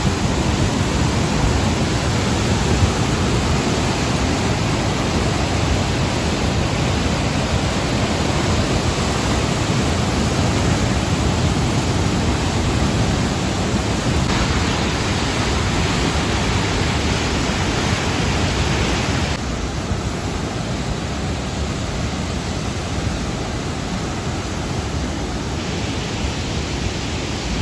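Flash-flooded mountain river rushing: a loud, steady roar of fast water that turns a little quieter and duller about twenty seconds in.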